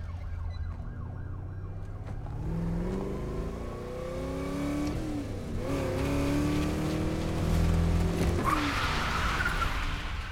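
A 1970 Chevrolet Chevelle SS's V8 engine revving hard, its pitch climbing in several rising sweeps as it accelerates through the gears. Near the end the tyres squeal loudly.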